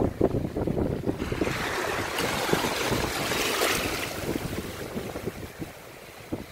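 Water splashing in shallow surf as a released barred javelin kicks away, a dense splashing hiss from about a second in that fades after about four seconds. Wind buffets the microphone underneath.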